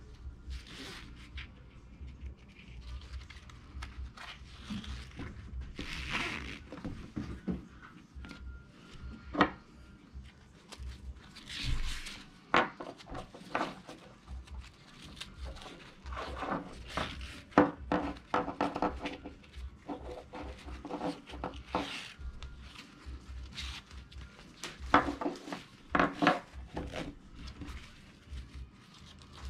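Nylon webbing strap being threaded by hand through plastic strap buckles: the strap rustles and slides, with irregular small plastic clicks and taps against a wooden table, a few of them sharper and louder.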